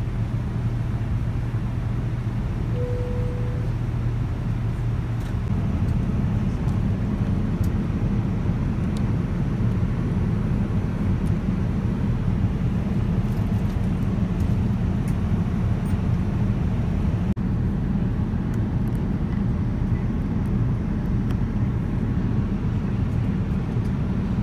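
Steady cabin noise of a Boeing 787-9 airliner in flight: a low rumble of engines and airflow, with a brief faint tone about three seconds in.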